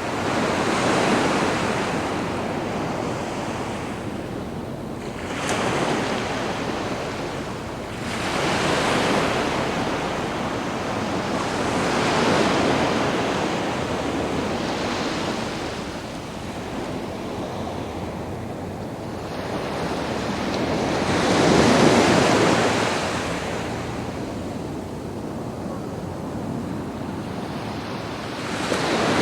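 Sea waves breaking and washing up a sandy beach, one surge after another every few seconds, the loudest about two-thirds of the way through. A light wind noise runs underneath.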